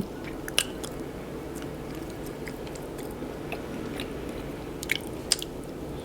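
A person chewing a mouthful of food close to the microphone, with scattered wet mouth clicks over a steady low hum.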